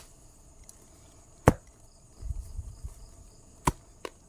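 A digging tool chopping into soil to deepen a small grave: four sharp strikes, irregularly spaced. Insects chirp faintly and steadily behind them.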